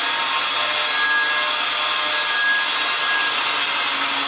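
Electric angle grinder's abrasive disc cutting through steel mounting points: a loud, steady grinding hiss with a faint high whine.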